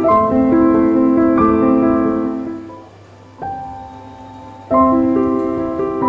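Background piano music: a slow melody of struck notes that ring and fade. It thins to a near pause about halfway through, then picks up again.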